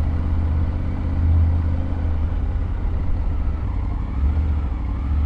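Triumph Tiger 900 GT Pro's three-cylinder engine running steadily at low speed, a continuous low rumble as heard from the riding motorcycle.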